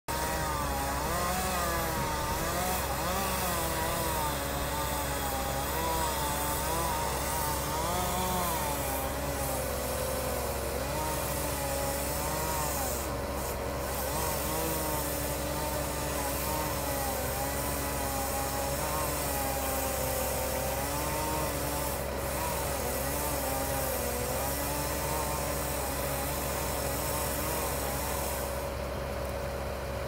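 Chainsaw running and cutting into a tree trunk, its pitch wavering up and down as it bites, over the steady drone of a bucket truck's engine.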